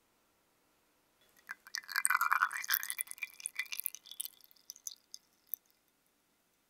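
Knife being drawn up out of a glass jar of linseed oil: wet crackling and light clicks of the metal against the glass, starting about a second in and thinning out into a few scattered ticks.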